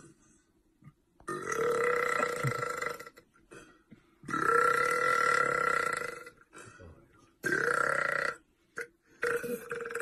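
A man belching long, drawn-out burps into a studio microphone: four in a row, each one to two seconds long. Each swoops up quickly at the start and then holds a steady pitch.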